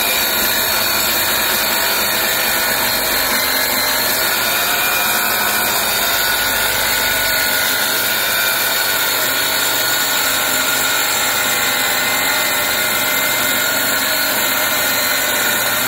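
Handheld electric circular saw ripping lengthwise through a thick driftwood log slab, its motor running at a steady whine under the blade's continuous cutting noise.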